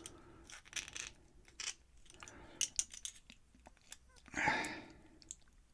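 Faint, scattered small clicks and taps of lock pins, springs and a metal tool being handled while a pin-tumbler lock is taken apart, with a short scraping rustle a little past four seconds in and a sharp click at the end.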